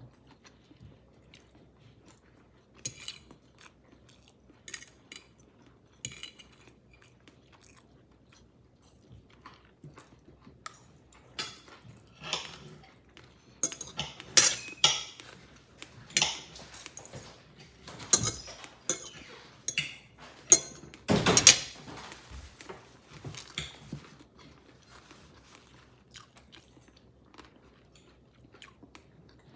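Spoon and fork clinking and scraping against a plate while eating, with chewing. The clinks are sparse at first, come thick and loud through the middle, then thin out near the end.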